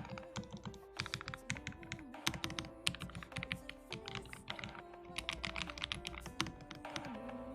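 Typing on a Lofree low-profile mechanical keyboard: a quick, irregular run of keystroke clicks, with background music underneath.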